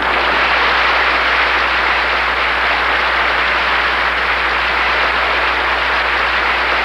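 Audience applauding steadily, a dense clapping that greets a speaker just introduced.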